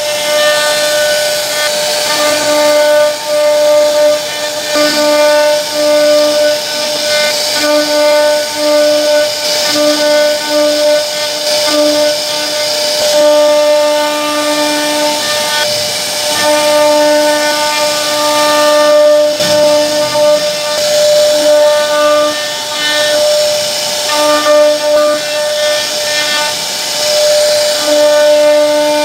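CNC router spindle carving a wooden door panel: a steady high whine with a hissing cutting noise above it. The noise rises and falls as the bit moves through the wood.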